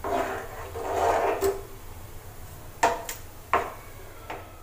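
A plastic spatula stirring chicken pieces in water in a frying pan: swishing and scraping for about a second and a half, then a few sharp taps of the spatula against the pan.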